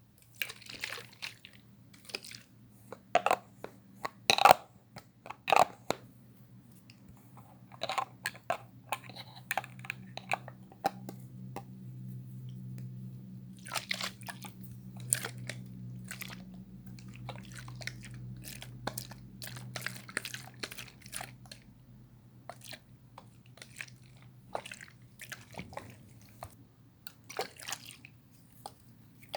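Close-miked ASMR trigger sounds: irregular sharp taps and crackles, some in quick clusters, over a steady low hum that swells for several seconds in the middle.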